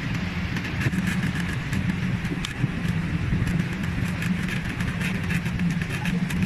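A boat's motor running steadily with a low hum, under the continuous rush of a large waterfall and churning river water.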